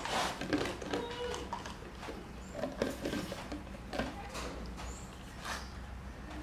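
Irregular small clicks and knocks of a plastic pacifier against a metal milk can as a baby monkey grips the can and sucks at the pacifier.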